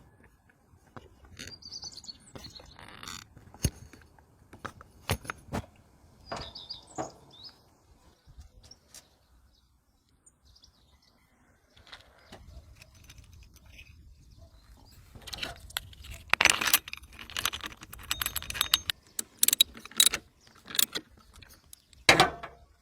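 Irregular metallic clinks and rattles of tools and parts being handled, sparse at first and busier and louder in the second half, with birds chirping now and then.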